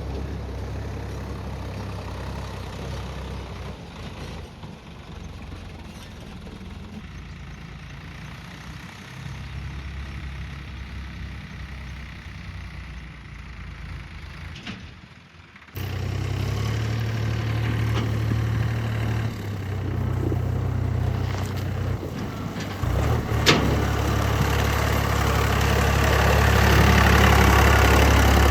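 Heavy diesel engine running with a low, steady rumble, typical of a backhoe loader or tractor at work. About halfway through, the sound jumps suddenly louder and fuller, and there is a sharp knock near the end.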